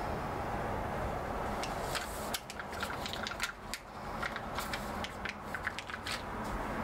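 A plastic sticker sheet being handled and a sticker peeled off it: from about two seconds in, a run of small crinkles and clicks over a steady low background hum.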